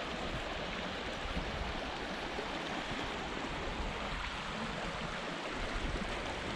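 Steady rushing of river water flowing, an even hiss with an uneven low rumble beneath it.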